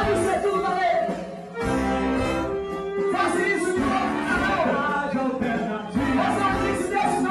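Live rock band playing, with an electric guitar and a man singing into a microphone. The band drops back briefly about one and a half seconds in.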